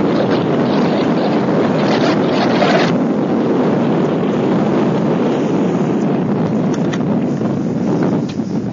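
Wind buffeting the microphone in a steady rumble, with the engine of an open car climbing a steep grass trial hill underneath it.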